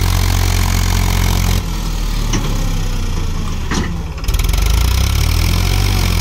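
Powertrac Euro Plus tractor's diesel engine running under load as it pulls a heavily loaded trailer through soft soil. The engine note drops suddenly about a second and a half in and comes back louder, with a pulsing beat, a little past four seconds.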